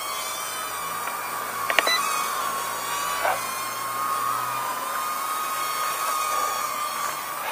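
Hubsan H111D nano quadcopter in flight: its motors and propellers give a steady high whine that wavers slightly in pitch as the throttle changes, over a hiss. A sharp click just under two seconds in, and a smaller one a second later.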